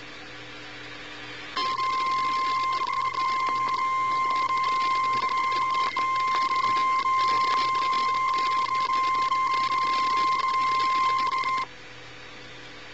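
NOAA Weather Radio warning alarm tone, the 1050 Hz alert that signals a watch or warning is about to be read. It is one steady high beep held about ten seconds, starting about a second and a half in and cutting off sharply, over constant radio hiss.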